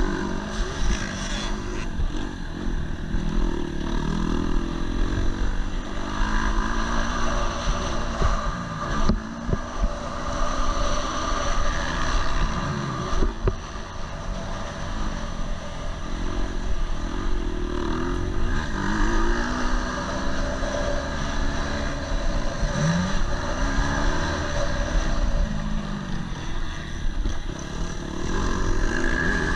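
The four-stroke single-cylinder engine of a 2018 KTM SX-F 250 motocross bike, heard from on board, revving up and dropping back again and again as the bike accelerates and backs off through corners.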